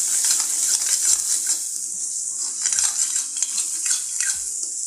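Steel spoon stirring onion-garlic chutney paste frying in a stainless steel kadai, with repeated irregular clinks and scrapes of metal on metal over the steady sizzle of the oil.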